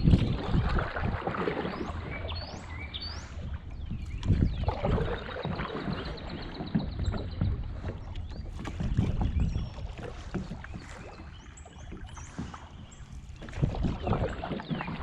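Kayak paddle strokes in the water: splashing and swishing that surge every four to five seconds, with a few faint bird chirps.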